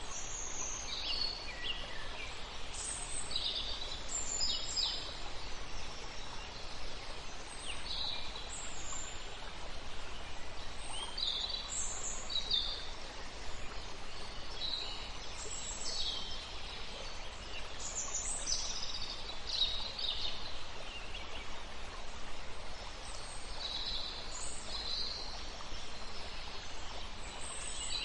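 Wild birds chirping and calling, short high notes every second or so, over a steady rushing background of outdoor noise.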